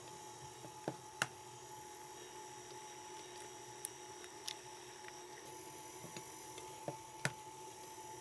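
KitchenAid stand mixer running with a steady hum, its paddle beating butter-and-sugar cookie dough in a glass bowl, with a few short sharp clicks and taps scattered through.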